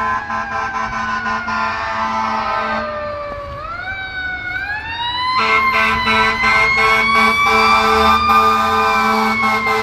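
Fire engine siren wailing as the truck responds. Its pitch slides down over the first few seconds, then climbs again and holds high, over a second steady, rapidly pulsing tone. It grows louder about halfway through as the engine approaches.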